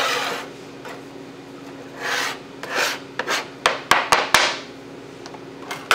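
A chef's knife blade scraping diced onion across a plastic cutting board in three short sweeps, with a run of sharp taps of the blade on the board about three to four and a half seconds in and another near the end.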